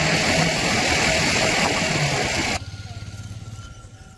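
Motorcycle engine running under heavy wind and road noise. About two and a half seconds in, the sound cuts abruptly to a much quieter, pulsing engine idle that fades away.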